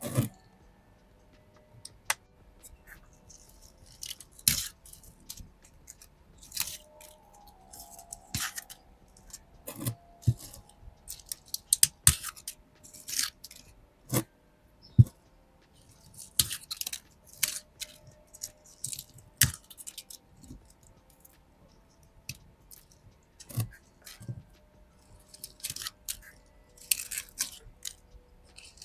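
Dry, dead succulent leaves being plucked and handled: irregular crisp crackles, snaps and rustles with an occasional sharp click.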